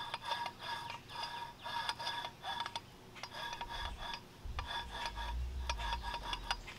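A TorqStorm centrifugal supercharger's internal gear drive clicking and ringing in short bursts as its pulley is turned by hand, about one or two bursts a second, while the old oil drains out. A low rumble comes in during the second half.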